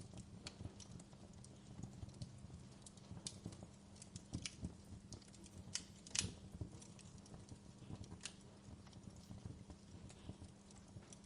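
Wood fire crackling faintly in a fireplace, with irregular small pops and one louder pop about six seconds in, over a low steady hum.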